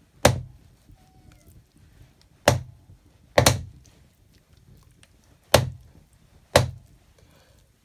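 Large knife chopping raw chicken on a wooden chopping block: five sharp chops, unevenly spaced.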